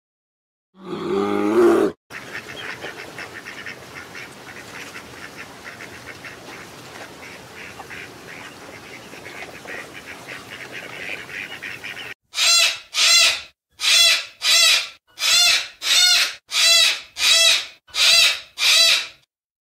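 A short, loud, low animal call, then about ten seconds of quieter duck calls repeating rapidly. Then ten loud, harsh cockatoo screeches about two thirds of a second apart.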